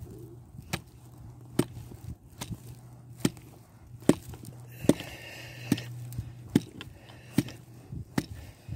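A wooden peg being knocked into a sap tap hole in a birch trunk, wood striking wood in steady, evenly spaced knocks a little under a second apart, plugging the hole to stop the sap running.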